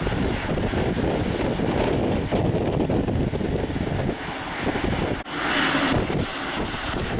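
Jet aircraft engine noise at an airport, a steady rumble mixed with wind buffeting the microphone. About five seconds in the sound changes abruptly and a brief hiss rises over the rumble.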